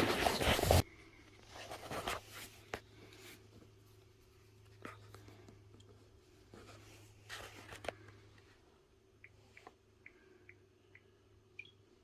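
Handling noise: a brief loud rustling burst at the start, then faint scattered clicks and rustles over a low steady hum that stops about eight and a half seconds in.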